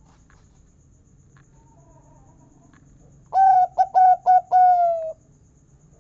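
Zebra dove (perkutut) singing one phrase: a quick run of short notes ending in a longer, slightly falling 'kung' note, about halfway in.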